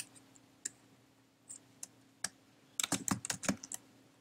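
Typing on a computer keyboard: a few scattered key clicks, then a quick run of keystrokes about three seconds in.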